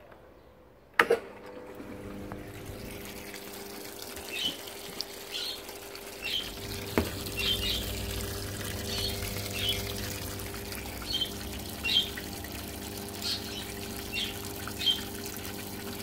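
A 2001 Hoover 7.5 kg top-loading washing machine clicks about a second in, then water runs into the tub with a steady rush and hum. A lower hum joins about seven seconds in. Short high chirps repeat throughout.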